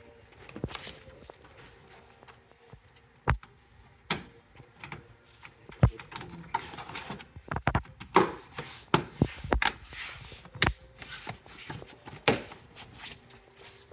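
Irregular plastic clicks and knocks as the Tesla Model Y's plastic cowl and trim panel at the frunk is pressed down by hand, its push clips snapping into place. The clicks come in an uneven series, busiest in the second half.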